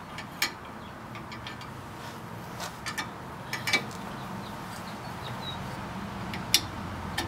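Sparse, irregular metal clicks and taps as a hand tool works a new TeraFlex shock into its lower mount bracket on a Jeep Wrangler JK. The shock is a stubborn fit in a bracket that was not widened first. The sharpest click comes about six and a half seconds in.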